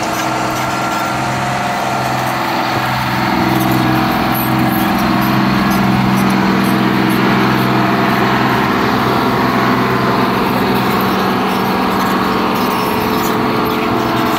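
Vermeer T-850 tracked trencher's diesel engine running steadily under load while the machine digs a trench. It gets a little louder about four seconds in.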